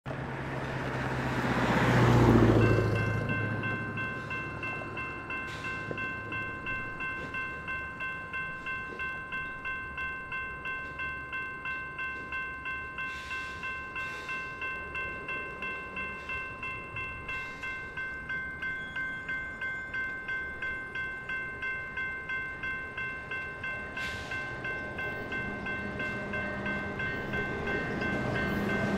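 A level crossing's electronic bell rings steadily at about two strokes a second, starting a few seconds in, after a passing vehicle swells and fades at the start. Near the end the approaching train's rumble grows louder.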